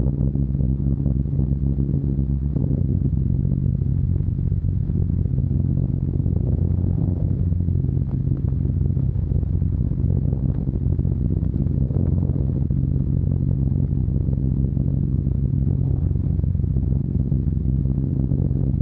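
Steady drone of a Short Stirling bomber's four Bristol Hercules radial engines in cruise, heard from inside the aircraft. The pitch shifts slightly about two and a half seconds in.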